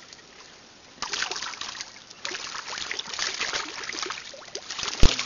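Piranhas feeding at the water's surface: a rapid crackle of small splashes that starts about a second in. A single dull thump near the end.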